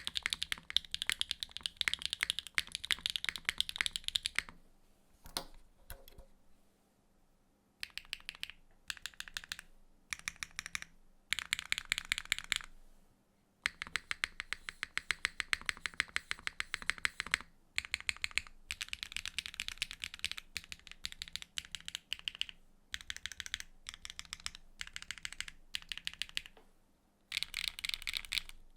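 Typing on a Neo65 mechanical keyboard with a carbon fibre plate and HMX Yunying switches: rapid bursts of keystrokes. After about four seconds there is a pause of a few seconds, broken by a couple of single key taps, then the fast typing resumes.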